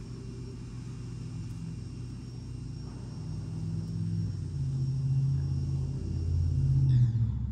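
A low rumble that swells over several seconds, is loudest about seven seconds in, then falls away.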